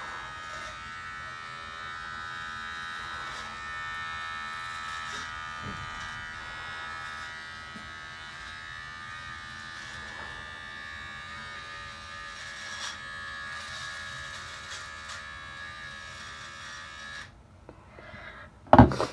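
Electric hair clippers running with a steady buzz while cutting a man's hair. The buzz stops about seventeen seconds in, followed shortly by a sudden loud sound near the end.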